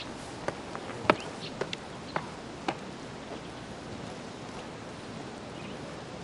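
A man's footsteps: about seven sharp, uneven steps in the first three seconds, the loudest about a second in, over a steady background hiss that then carries on alone.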